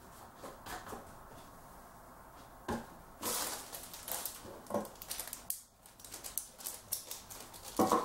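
Scattered clicks and light rattling of small hardware being handled, with a sharper click and a brief rustle about three seconds in.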